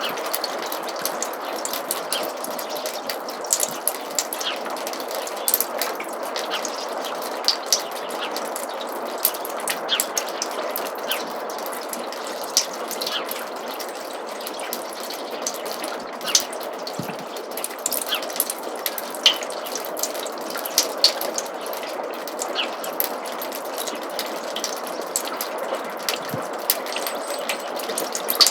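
Snowmelt water trickling steadily through a roof gutter, with many irregular drops falling and ticking on top of the trickle.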